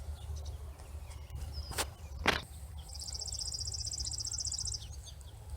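Outdoor pasture ambience: a high, fast buzzing trill lasting about two seconds, two short sharp clicks before it, and a steady low rumble underneath.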